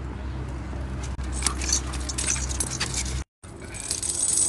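Metal chain lead on a spotted hyena's collar clinking and rattling as the animal moves, over a steady low hum. The sound drops out briefly a little after three seconds in.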